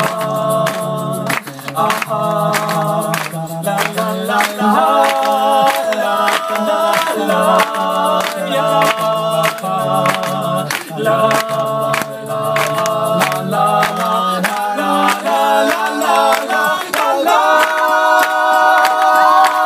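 Three male voices singing a cappella through microphones: wordless chords over a low sung bass line, with a steady beat of sharp clicks, ending on a long held chord.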